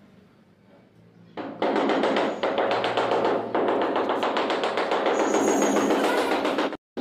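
Fast, continuous tapping on a large floor tile to bed it into the cement and M-sand mortar. It starts about a second and a half in and breaks off for an instant just before the end.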